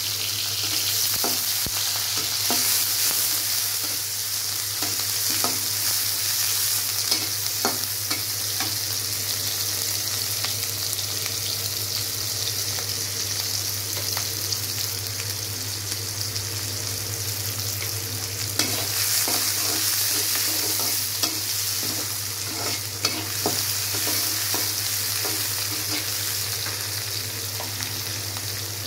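Sliced onions sizzling in hot oil in a karahi, stirred with a metal spatula that scrapes and clicks against the pan now and then.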